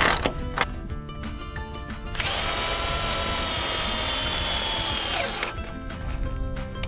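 A few clicks from a hand socket ratchet, then a cordless drill driving a fastener into a wooden rafter. The drill's motor whines steadily for about three seconds, then falls in pitch as it stops.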